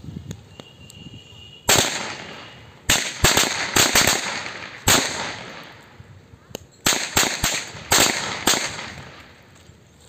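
A home-made string of small bijli-bomb firecrackers going off: about a dozen sharp, loud bangs at irregular intervals, starting about two seconds in, each ringing out briefly.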